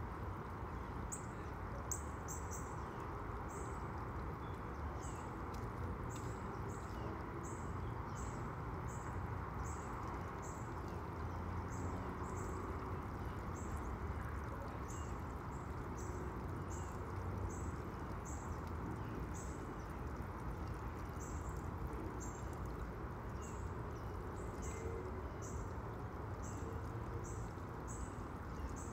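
A high, thin chirp repeating one or two times a second over a steady low background hum of outdoor noise.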